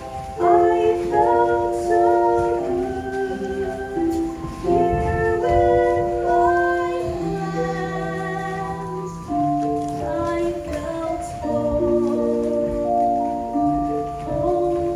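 Musical-theatre song accompaniment: instrumental music playing a melody over chords in held, steady notes.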